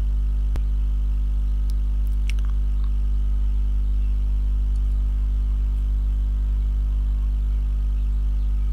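Steady low electrical hum, a buzz with evenly spaced overtones that stays at one level throughout, with a sharp click about half a second in and a couple of fainter clicks around two seconds in.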